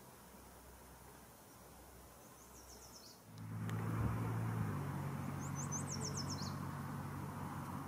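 A parked CC-130J Hercules's gas-turbine auxiliary power unit starting up about three seconds in. The sound jumps from quiet to a steady low hum with a rushing noise. A small bird gives a high, quick run of chirps twice.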